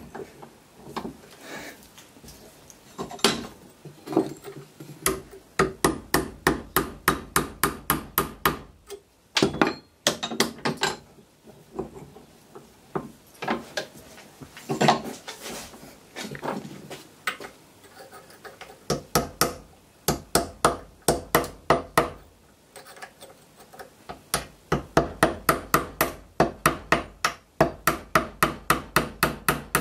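Hammer tapping a steel punch set in the drilled pin hole of a WW1 British No.80 brass artillery fuse held in a vise: rapid metal-on-metal strikes in bursts, with short pauses between them. Each blow drives the fuse's top cap round to loosen it.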